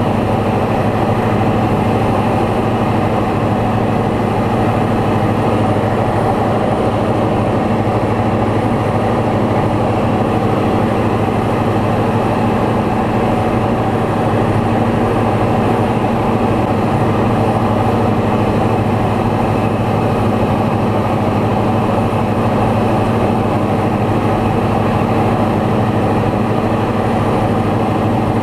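Light aircraft's piston engine and propeller running at a steady drone in cruising flight, with no change in pitch or level.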